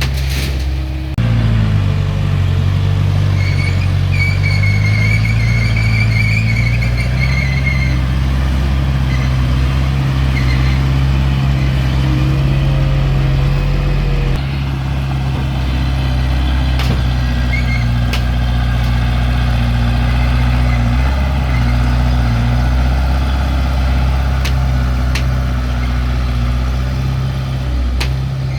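Heavy diesel engine of earth-moving machinery running steadily with a low, even drone. Its pitch shifts about a second in, and a thin high whine wavers over it for a few seconds after that.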